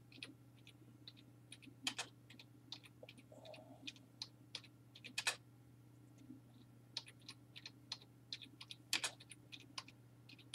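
Computer keyboard typing, with irregular, scattered keystrokes and short pauses, over a faint steady hum.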